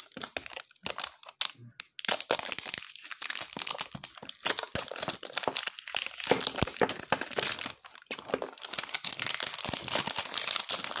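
Clear plastic shrink wrap crinkling and crackling as it is peeled off a cube's clear plastic box by hand. There are a few separate crackles at first, then dense, continuous crinkling from about two seconds in.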